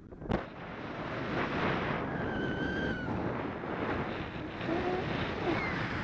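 Wind rushing over the microphone of a paraglider in flight, building about half a second in as the glider gathers airspeed after leaving the hillside. There is a sharp click just after the start and a faint wavering whistle for about a second near the middle.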